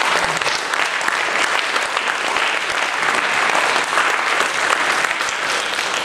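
Theatre audience applauding steadily after a talk ends.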